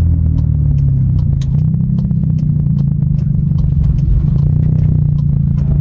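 A car driving, heard from inside the cabin with the windows up: a steady low engine and road drone, with light ticking clicks throughout.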